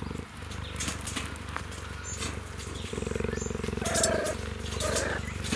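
Cheetah purring, a low continuous pulsing, while meerkats groom him through the fence: a sign of contentment. Short higher-pitched animal calls break in twice, about four and five seconds in.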